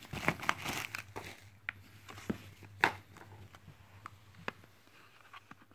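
Light clicks and taps of a power bank's plastic casing being handled and set down, scattered irregularly, with a brief rustle in the first second.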